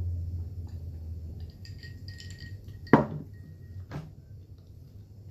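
Ice clinking in a drinking glass, then the glass set down on a wooden cutting board with a loud knock just under three seconds in, and a second, lighter knock about a second later. A distant motorcycle's low rumble fades out in the first second and a half.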